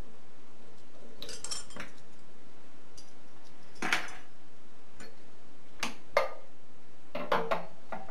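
Steel parts clinking and knocking against a metal-lathe's three-jaw chuck as a workpiece and chuck key are handled. The knocks come in short clusters: one lasting about a second from about a second in, single clinks around four and six seconds, and a quick run near the end.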